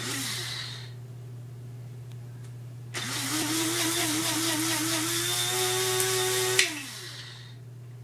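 Electric coffee grinder: a brief whir at the start that winds down, then a longer run of about three and a half seconds from about three seconds in, which stops with a click and spins down.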